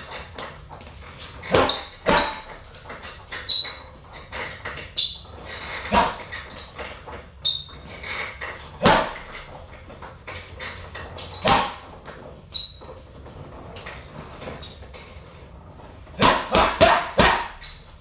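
Boxing gloves punching a hanging heavy bag: single sharp slaps a few seconds apart, then a quick flurry of about six punches near the end. Short high squeaks come between the punches.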